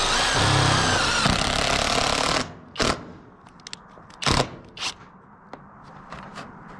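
Cordless impact driver hammering a self-tapping roofing screw into sheet-steel flashing for about two and a half seconds, then a few short sharp knocks.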